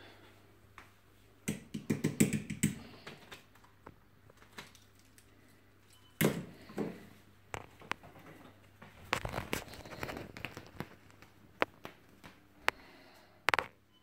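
Irregular bursts of scratching, rustling and sharp clicks from a pet grey squirrel scrambling about a kitchen worktop, in a few clusters, with a sharp double click near the end.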